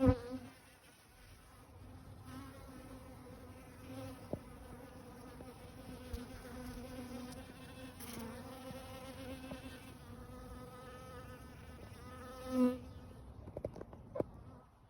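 Honeybees buzzing in flight close by: a steady, pitched hum that waxes and wanes, swells as a bee passes close about twelve and a half seconds in, and then fades away. A sharp click right at the start and a few light ticks near the end.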